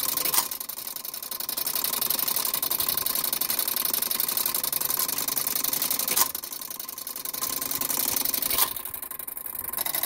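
Bliss Gamewell punch register's clockwork running with a steady, fast mechanical whir and tick as it draws its paper tape through, while the fire alarm system receives a coded alarm. Three sharp clacks of the mechanism come about half a second in, about six seconds in and near the end.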